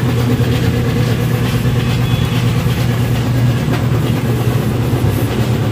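An engine running steadily at idle: a constant low hum that does not change in pitch or level.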